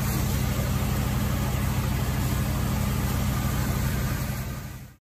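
Fire apparatus diesel engine running at a steady speed on the fireground, under a hiss of noise. The sound fades out from about four seconds in.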